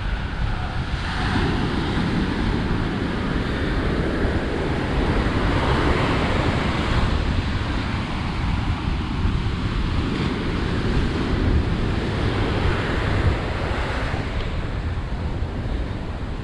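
Ocean surf breaking and washing up the beach in repeated swells, with wind rumbling on the microphone throughout.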